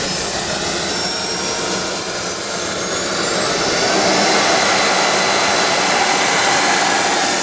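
ATJ model gas turbine engine in a radio-controlled jet starting up: a loud high whine with a rushing hiss, rising in pitch about three seconds in, holding steady, then easing down a little near the end.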